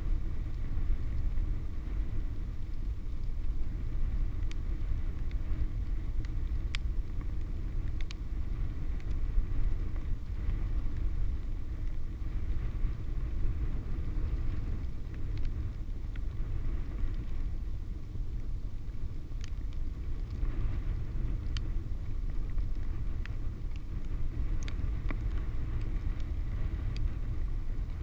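Wind buffeting an action camera's microphone and tyre rumble from a loaded touring bicycle coasting fast downhill on a paved road: a steady low rumble, with a few scattered faint ticks.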